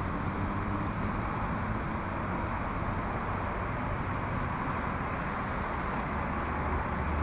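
Steady rushing of wind over a bicycle helmet camera's microphone as the bike rolls slowly along, with a faint low hum underneath.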